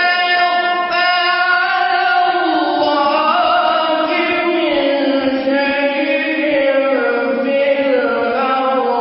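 A young man reciting the Quran in a melodic chant, unaccompanied: one voice holding long notes and sliding between pitches without a break.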